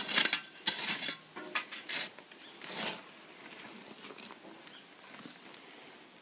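Old coals and ash being dug out of a ground cooking pit, with several short scraping, crunching strokes in the first three seconds, then quieter.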